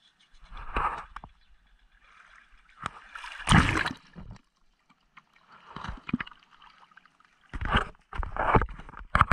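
Several separate bursts of rubbing, knocking and shallow water sloshing as an action camera is moved about close to the water beside an outrigger canoe's hull, the loudest about three and a half seconds in.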